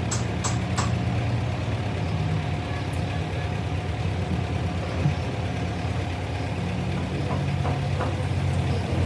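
Heavy diesel engine running steadily at a low idle-like speed, with a few light clicks at the start and a single brief knock about five seconds in.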